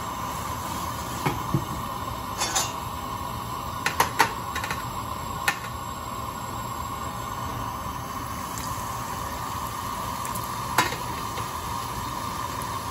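Metal kitchen utensils clinking and tapping against a metal tray and pan: a handful of short, sharp metallic taps, most in the first half and one near the end, over a steady background hum.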